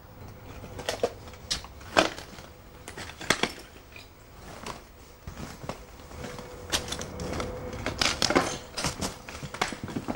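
Footsteps crunching over fallen plaster, glass and ceiling debris: irregular crunches and sharp clicks, some louder than others.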